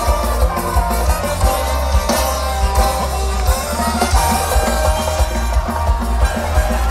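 Live band playing loud amplified music on a concert stage, with a steady drum beat and heavy bass under guitars.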